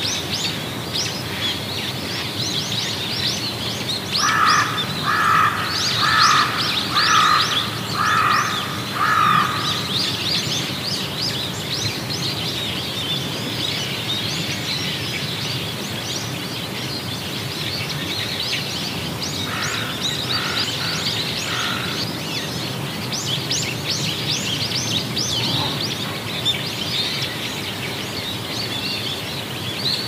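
Rushing water of a snow-banked cascading waterfall under a continuous chorus of small birds chirping. A louder, lower bird call repeats six times about a second apart starting about five seconds in, and four more times around twenty seconds in.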